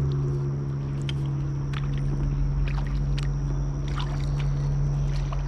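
Kayak moving on a lake: small water drips and light splashes from the paddle, over a steady low hum that runs throughout.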